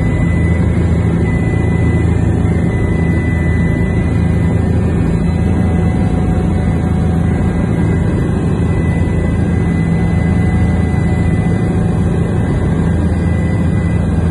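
Steady aircraft engine drone heard from on board, heavy in the low range, with a faint thin high whine over it.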